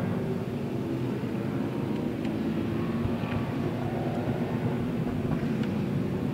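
Several racing muscle-car engines running together as a pack of cars goes through a corner, a steady mix of overlapping engine notes.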